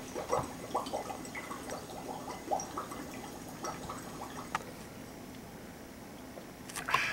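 Water moving in a drinking glass with a plastic straw: several short sloshing and trickling sounds in the first three seconds, then quieter while it is sipped through the straw, with a brief louder noise near the end.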